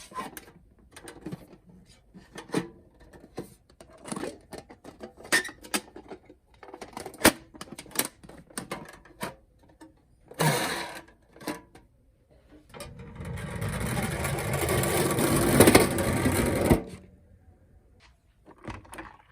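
Plastic toy minicars being handled, a string of scattered clicks and clacks. Then a whirring noise about four seconds long builds in loudness and stops suddenly.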